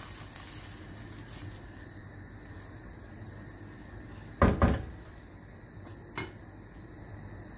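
Wooden spoon stirring a thin curry sauce in a wok, a low, quiet scraping and simmer. About halfway through come two sharp knocks close together, and a lighter click a little later.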